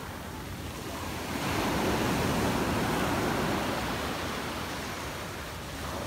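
Black Sea surf breaking and washing up a sandy beach, the rush swelling about a second and a half in and fading again near the end.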